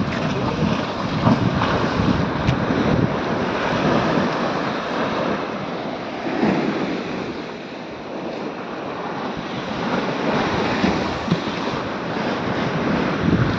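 Rough storm surf from a cyclone breaking and washing up against a concrete sea wall, rising and falling in surges, with wind gusting on the microphone.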